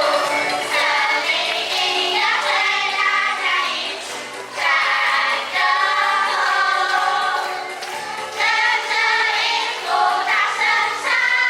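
A song sung by a group of voices together over backing music, with a continuous melody and no pauses.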